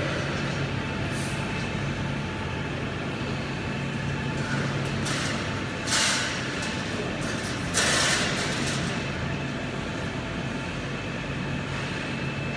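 Steady low machine hum of a factory floor, broken by several short hisses of compressed air from pneumatic machinery. The loudest hisses come about six and eight seconds in.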